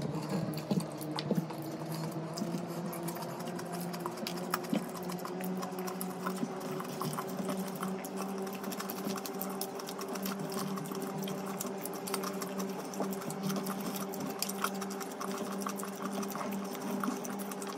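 Close-up wet chewing and lip-smacking of food eaten by hand, with many small clicks of fingers picking at a metal tray, over a steady machine hum.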